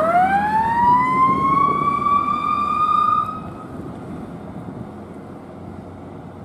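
Fire squad truck's siren winding up quickly to a steady high tone, held for about three seconds, then cut off abruptly, leaving a lower steady rumble of the truck driving away.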